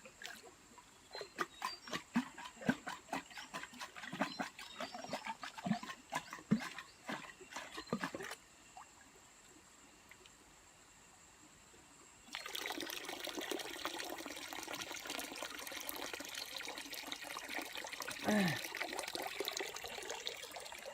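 Water: a scatter of small splashes and knocks for several seconds, then, after a short gap, a steady trickle of running water.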